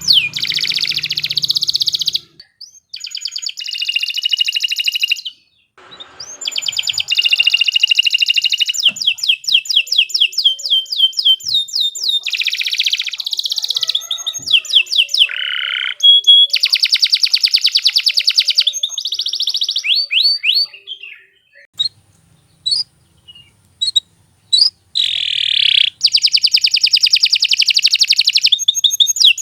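Domestic canary singing a long song of fast trills and rolling runs of repeated notes, broken by short pauses. A little past two-thirds through, the song thins to scattered single chirps before the fast trilling resumes.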